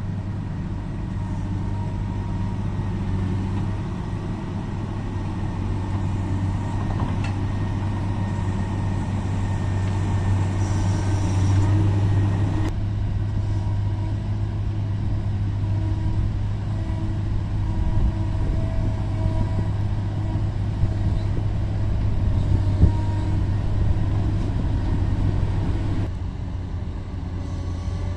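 Caterpillar 140M motor grader's six-cylinder diesel engine running steadily under load while it grades a rocky dirt road, with a couple of short sharp knocks in the second half.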